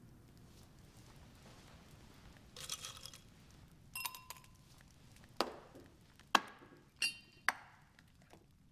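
Cut-glass decanters and a glass clinking and knocking in a tantalus decanter stand as its locking bar is lifted and a decanter handled: a short clatter about two and a half seconds in, then a ringing clink and four sharp knocks, a couple of which ring briefly.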